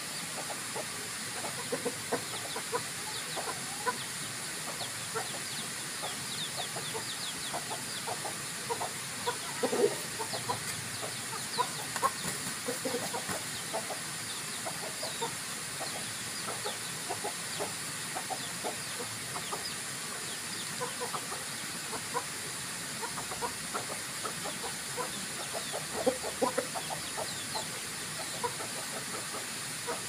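Indonesian village chickens (ayam kampung), a rooster and hens, giving short, scattered clucks while they forage, over a steady hiss. The clucks are louder about ten seconds in, again about two seconds later, and again near the end.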